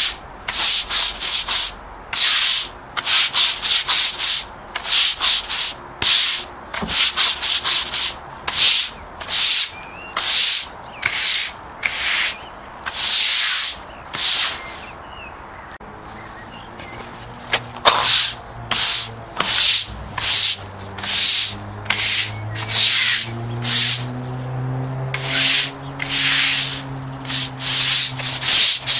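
A stiff-bristled push broom scrubbing wet concrete paving slabs in quick back-and-forth scraping strokes. There is a short pause about halfway through, then the scrubbing picks up again.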